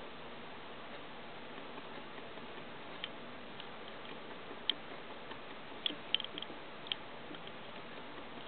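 Steady hiss with a handful of faint, irregular clicks and crackles through the middle, from a Dumeril's boa working a mouse down its throat on wood-shaving bedding.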